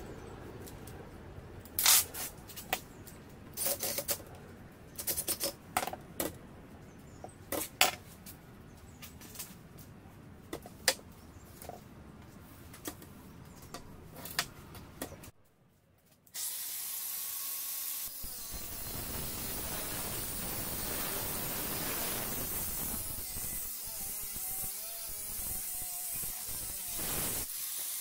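Clicks and knocks of metal parts being handled as an angle grinder is clamped into a pivoting cut-off stand. Then, after a brief silence, a steady hissing grind as the grinder's abrasive cut-off disc cuts through steel square tube.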